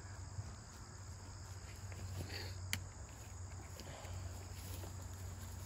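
Quiet background: a faint steady low hum with a faint high steady whine or chirring over it, and a single sharp click just before the middle.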